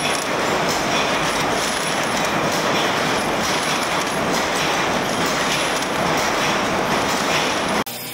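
Steady, dense metallic clatter from a screw-making machine, with small metal parts rattling down its chute and onto the tray. It cuts off abruptly near the end, giving way to a quieter machine sound.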